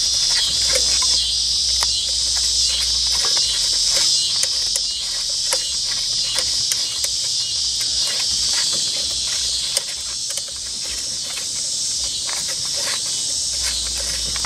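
A loud chorus of insects singing in a steady, rhythmically pulsing drone, with scattered short clicks from a ratchet and socket tightening a hose clamp on a fuel hose.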